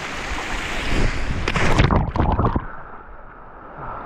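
A person jumping into a pool of river water: a loud burst of splashing about a second in over the steady rush of flowing water, after which everything turns dull and muffled as the camera goes under.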